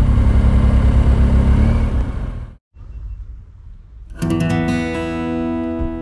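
Motorcycle engine running at low speed with a low, pulsing rumble that cuts off abruptly about two and a half seconds in. After a short quieter stretch, acoustic guitar music starts about four seconds in.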